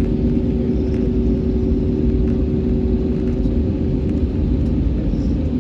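Airliner's engines running, heard from inside the passenger cabin: a steady low rumble with a steady hum over it.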